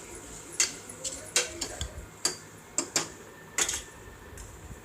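A spoon knocking and scraping against the pressure cooker pot while stirring vegetables and masala, in irregular clinks about every half second.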